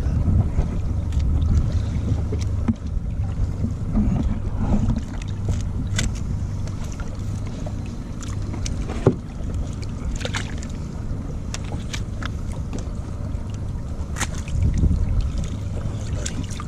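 Boat motor running low and steady at idle, with wind on the microphone and scattered knocks and clicks, one sharper knock about nine seconds in.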